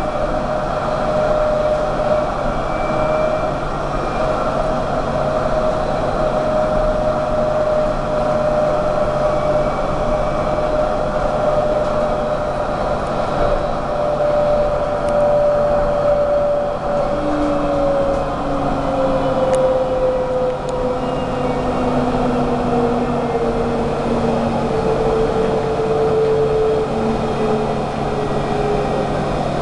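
Inside an Alstom Citadis tram running along its line: a steady rolling rumble with a clear electric motor whine. The whine holds level, then falls gradually in pitch over the second half.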